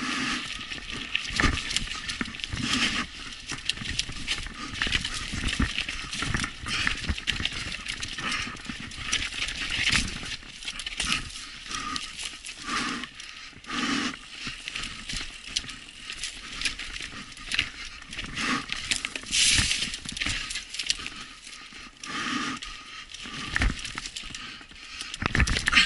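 Mountain bike clattering over rocks and dry leaves on a rough trail: a continuous run of irregular knocks, rattles and crunches, with louder jolts now and then, as heard from a camera carried on the bike or rider.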